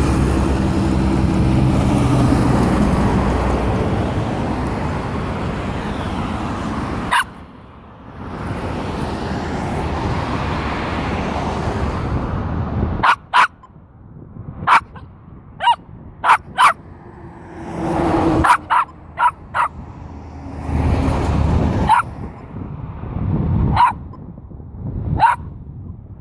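Jack Russell terrier barking in single short, sharp barks, more than a dozen spaced out over the second half. A loud steady rumbling noise fills the first seven seconds and then cuts off.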